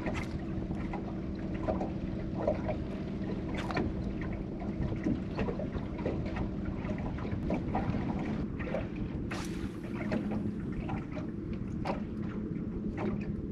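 Water lapping and ticking against a small fishing boat's hull, with a steady low hum and wind on the microphone. There is a brief hiss about nine and a half seconds in.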